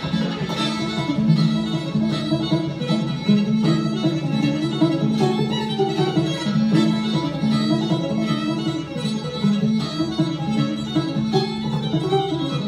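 Fiddle and banjo playing an old-time tune together: a bowed fiddle melody over a steady, even rhythm of plucked banjo notes.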